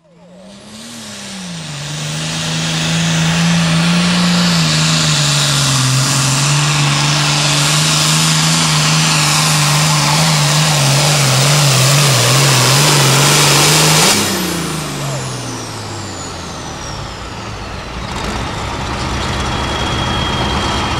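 John Deere Super Farm pulling tractor's turbocharged diesel engine running flat out under load as it drags the sled, its pitch wavering steadily. About fourteen seconds in it revs briefly and then winds down as the throttle comes off, with the turbo's whistle gliding down in pitch.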